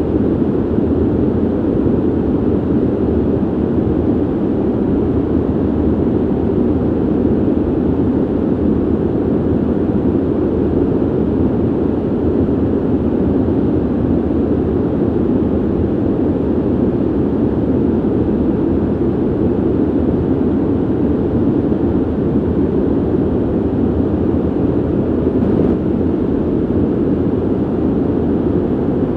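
Steady ventilation noise: an even, low rush of air with no rhythm or change in level.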